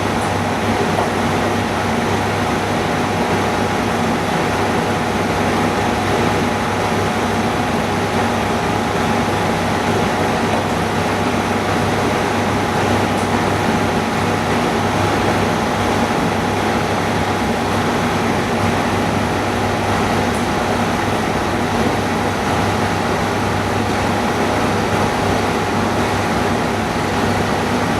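Steady drone of running machinery or fans, with a constant low hum and a faint steady whine throughout.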